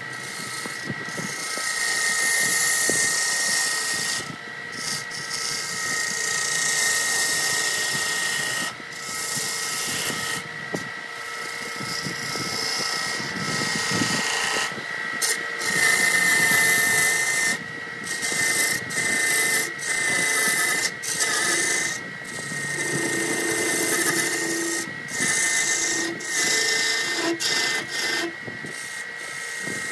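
Wood lathe turning a wooden blank while a hand-held gouge cuts into it: a continuous hiss of shavings peeling off, with a steady high whine underneath. The cut breaks off for a moment many times as the tool is lifted and set back in.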